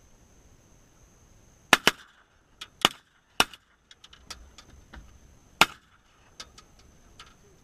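Shotguns firing: five loud shots over about four seconds, the first two close together, with fainter sharp clicks and pops in between and after.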